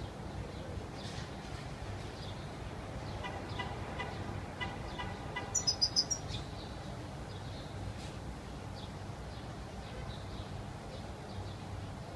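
European goldfinch chirping and twittering in short scattered calls, with a quick run of loud, very high notes about halfway through, over a steady low background rumble.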